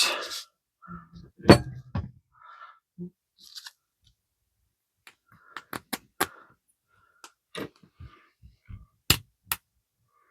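Scattered light clicks and taps of small telegraph-key parts (screws, plastic washers and insulators) being handled and set down on a work surface, with faint scrapes between them. One sharp click comes about a second and a half in, and two more come close together near the end.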